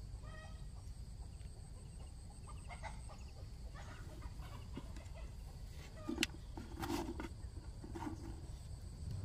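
Chickens clucking now and then over a steady low rumble, with a short pitched call near the start and one sharp click about six seconds in.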